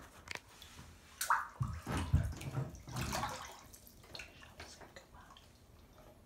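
Bathwater sloshing and splashing as a child moves his body in a filled bathtub, with a cluster of splashes between about one and three and a half seconds in, then quieter lapping.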